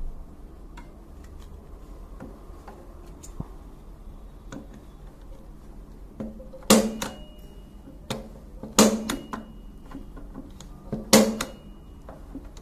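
Punch-down tool seating network cable wires into a patch panel's contacts: three sharp clacks about two seconds apart in the second half, each with a brief ring, after lighter clicks of wires being pressed in.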